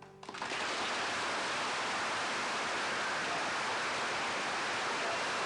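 A studio audience applauding steadily, starting just as the last acoustic guitar chord of the song dies away.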